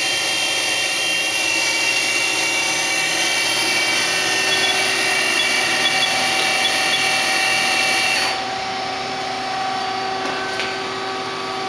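Citizen L20 CNC Swiss lathe's subspindle spinning at 3500 RPM, a steady high whine with several tones. The whine cuts off about eight seconds in, leaving a lower steady machine hum.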